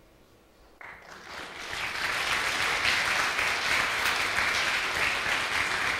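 Congregation applauding, starting suddenly about a second in and building within a second to steady clapping.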